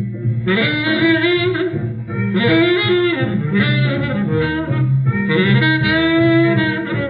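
Small 1940s jazz band (trumpet, two tenor saxophones, piano, string bass, drums) playing an instrumental blues passage, with a horn playing phrases over the bass line. The sound is an old 78 rpm record transfer with the treble cut off.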